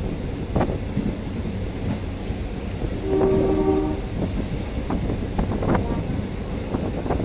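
Passenger train running on the rails: a steady low rumble with irregular clicks and knocks of the wheels over rail joints. About three seconds in, the locomotive horn sounds once for about a second.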